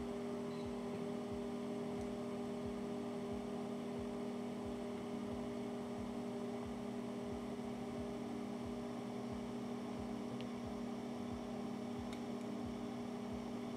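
Steady low electrical hum of an electric potter's wheel motor running, two even tones that do not change.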